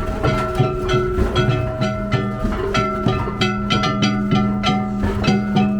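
Danjiri festival-float music: plucked strings and held notes over drum and wooden clicks keeping a steady beat.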